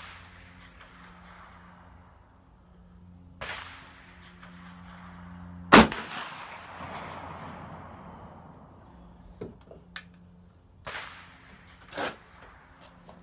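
A .50 calibre Dixie Gun Works Tennessee Mountain percussion muzzleloading rifle fires once, almost six seconds in. It is a sharp, loud report with a long echo that fades over a couple of seconds. Several fainter bangs and a few small clicks come before and after it.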